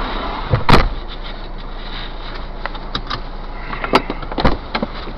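Steady road and engine noise inside a moving car's cabin, broken by a few sharp knocks and rattles, the loudest about three-quarters of a second in and two more near the four-second mark.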